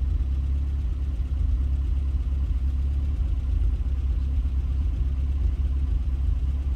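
A pickup truck's engine idling: a steady low rumble.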